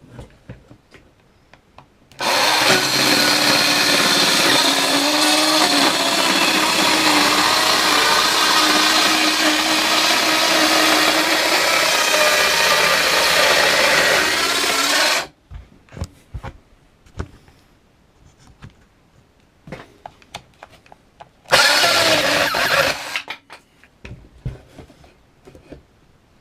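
Parkside PHKSA 12 A1 12 V cordless mini circular saw running and cutting for about thirteen seconds, its motor pitch wavering as it works. Then come scattered handling clicks and a second short run of about a second and a half near the end.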